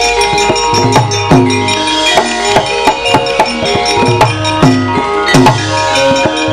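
Javanese gamelan playing: bronze keyed and gong-chime instruments ring out a melody over kendang hand-drum strokes that drop in pitch as they sound.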